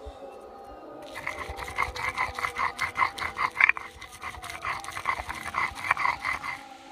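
Stone pestle rolled and rubbed back and forth over a flat stone grinding slab (shil-nora), grinding a wet leaf-and-prawn paste: a quick rhythmic grating that starts about a second in and stops just before the end.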